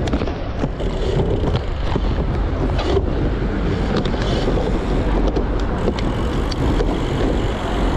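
Steady wind rush over the microphone of a moving bicycle, with road rumble and a few faint clicks.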